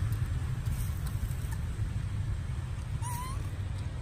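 An infant long-tailed macaque gives one short rising squeak about three seconds in: the cry of a baby being weaned from nursing. Under it runs a steady low rumble.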